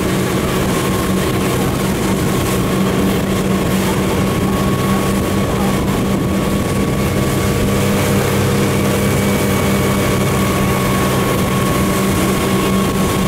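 Motorboat engine running steadily at a constant pitch, with an even rushing noise over it.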